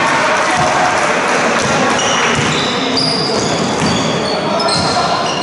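Basketball game sounds in a sports hall: the ball bouncing on the court and basketball shoes squeaking on the floor, with a run of short, high squeaks from about two seconds in. Voices echo in the hall.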